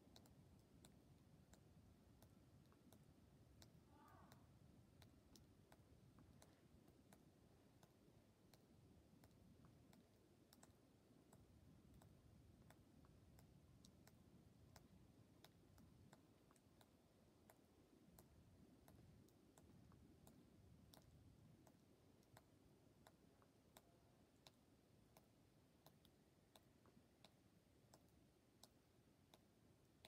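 Near silence: a faint low hum of room tone, with a run of faint, irregular ticks.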